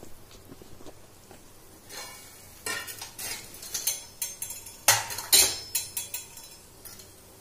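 A metal spoon scraping and clinking against an iron kadhai as a coarse spice mix is stirred in the pan. The strikes come in an irregular run starting a few seconds in, loudest about five seconds in, then die away.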